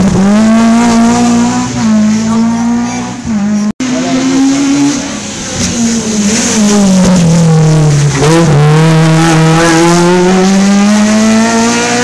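Rally car engines at high revs on a special stage, cut short by an abrupt edit gap about four seconds in. The second car's engine note drops as it slows for a corner, then climbs steadily as it accelerates away through the gears.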